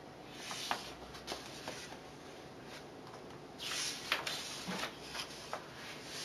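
Pages of a paperback picture book being handled and turned: soft paper rustles and small taps, with a louder swish of a page flipping over about four seconds in.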